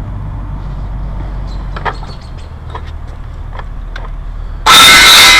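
A few light clicks over a low steady rumble, then near the end a cordless circular saw starts suddenly and loudly and bites into the office chair base's leg, with a high whine.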